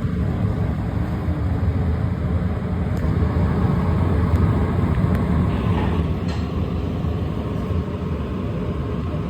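Steady low rumbling noise with a fainter hiss above it.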